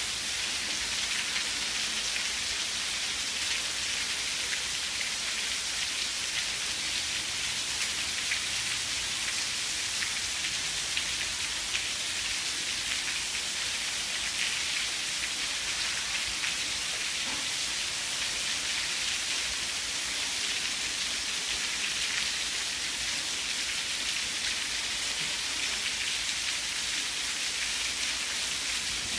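Heavy rain pouring down steadily in a thunderstorm downpour: an even hiss with many small drop ticks on surfaces.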